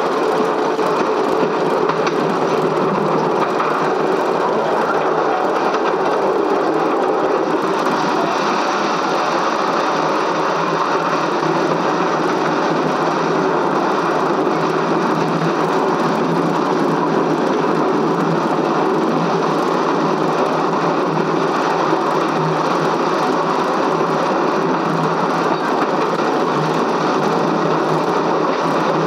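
A train running: a steady mechanical running noise that holds at one level throughout, without pauses or a clear beat.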